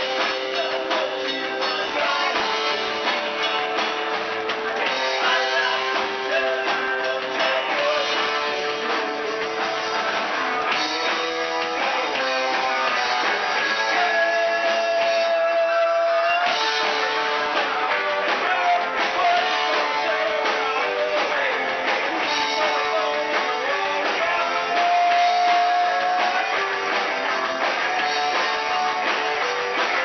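Live rock band playing: electric guitars and drums, with long held notes repeating in phrases of about two seconds.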